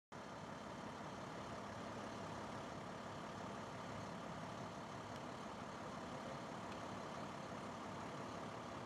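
A vehicle engine idling steadily under outdoor background noise.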